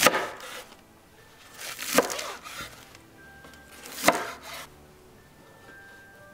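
Chef's knife slicing through a bunch of scallion stalks on a cutting board: three slow strokes about two seconds apart, each a crisp crunch ending in a sharp knock of the blade on the board.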